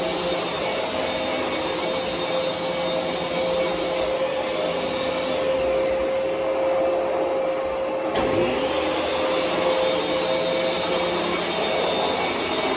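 Dyson DC17 Absolute upright vacuum cleaner running steadily with its motor whine and brush roll. Its high whine dips and fades for a few seconds in the middle, then comes back after a short knock about eight seconds in.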